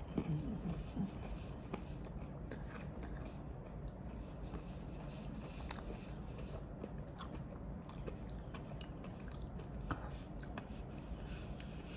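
A person chewing a piece of milk chocolate bar, with faint scattered mouth clicks over a low steady hum. A brief low murmur comes just after the start.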